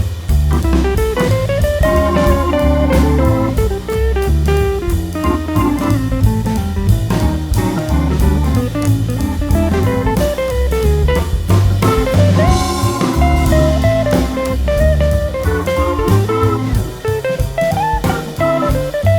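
Background music: a guitar-led blues-jazz tune with drums and bass.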